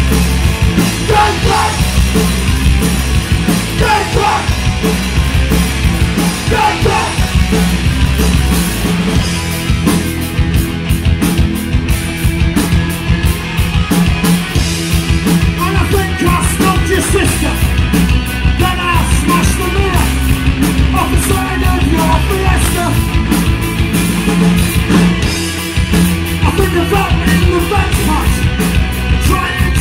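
Punk rock band playing a song live, loud, with sung vocals over the band.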